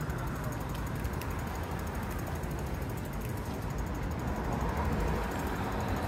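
City street ambience: a steady rumble and hiss of traffic.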